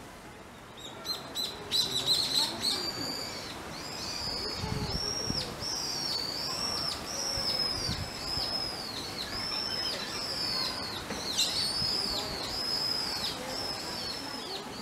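A long run of high chirping calls, each a short whistle that rises and falls, repeated about one and a half times a second, starting about a second in.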